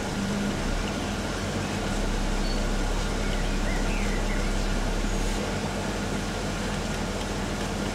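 Steady hum and hiss of aquarium pumps and filters running, with a deeper low rumble through the first half that drops away about five seconds in.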